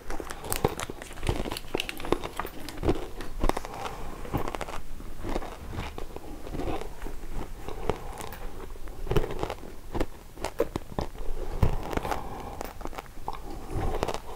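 A man crunching and chewing a very salty challenge potato chip coated in a green, wasabi-like seasoning, in a run of short, irregular crunches picked up close by a clip-on microphone.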